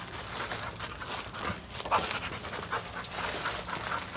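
A dog panting in a quick run of short breaths.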